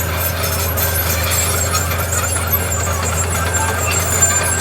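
Heavy diesel earthmoving machine running steadily with a constant low engine drone.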